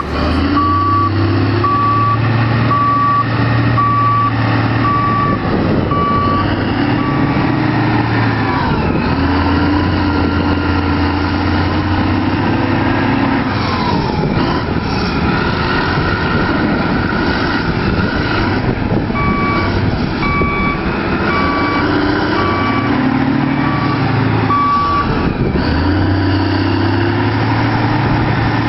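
Heavy diesel construction machinery running, its engine note rising and falling under load. Over it a reversing alarm beeps about once a second in two runs: at the start, and again from about two-thirds of the way in.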